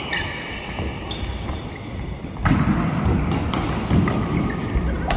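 Badminton rally: rackets striking the shuttlecock in several sharp cracks about a second or more apart, with shoe squeaks and footfalls on the court floor, in a large echoing hall.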